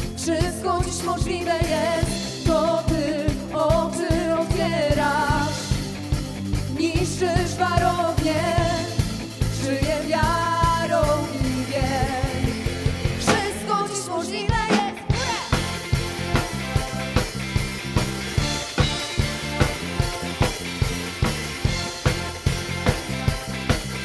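Worship band music: a singer's melody over drums and bass for the first half, a short break with a falling sweep about halfway through, then an instrumental passage with a steady drum beat about twice a second.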